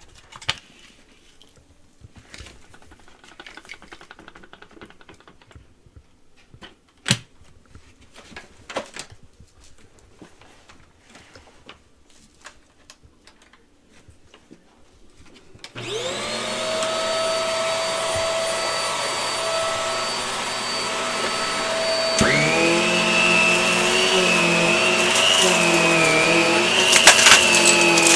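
Faint handling clicks and knocks, then about halfway through a Hart vacuum cleaner switches on and runs with a steady whine. Some six seconds later its sound changes and a higher, wavering whistle joins in, with a few knocks near the end.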